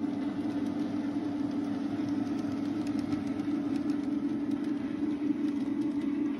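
N scale model trains running on the layout: a steady motor hum with faint, irregular light clicking from the wheels on the track.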